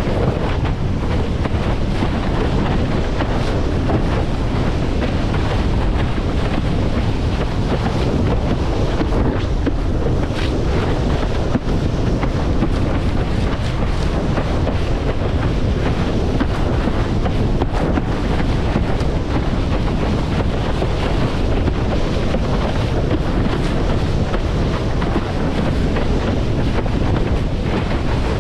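Loud, steady wind noise buffeting the microphone of a windsurfing rig sailing in a strong wind of about 20 knots, with water rushing past the board on choppy sea.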